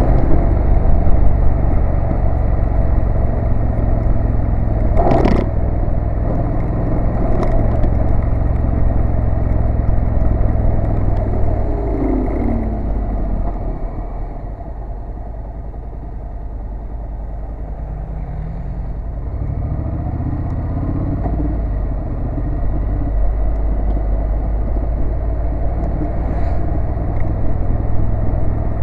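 Honda NC750S parallel-twin engine running at road speed, heard from on the bike with wind noise over it. There is a sharp knock about five seconds in. The engine note falls away around the middle as the bike slows, then picks back up toward the end.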